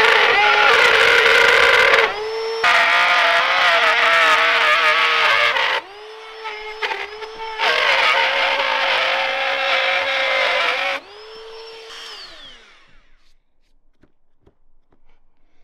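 Ryobi 18V cordless router trimming the edge of OSB sheathing flush at a corner. Its motor runs with a high, steady whine that drops briefly twice and is quieter for a couple of seconds midway. About eleven seconds in it is switched off and spins down in a falling whine, followed by a few faint knocks.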